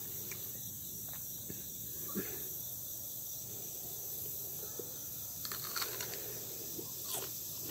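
A few crisp crunches of a raw green pepper being bitten and chewed, about five and a half and seven seconds in, over a steady high insect drone.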